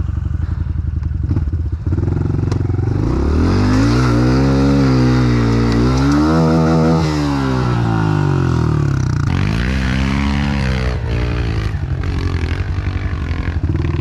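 Honda CRF110F pit bike's small single-cylinder four-stroke engine revving under load, its pitch climbing and falling several times as the throttle is worked, then settling lower near the end with a few knocks and clatters.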